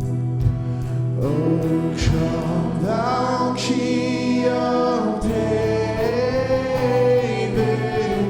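Church worship music: strummed guitar accompaniment, with voices coming in about a second in and singing long, held notes over it.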